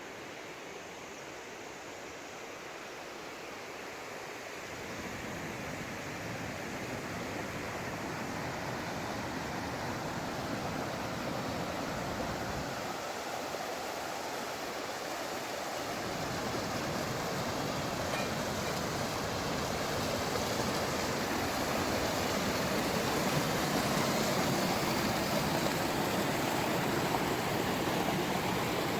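Steady rush of a fast-flowing mountain stream, growing gradually louder.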